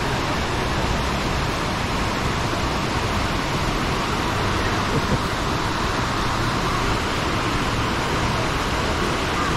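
Steady rush of river rapids and water pouring over a low weir. The river is running high after days of rain.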